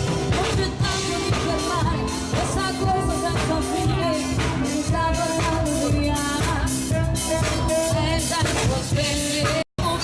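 A live band playing a pop song with a singer over a steady drum and bass beat. The sound cuts out completely for a split second near the end.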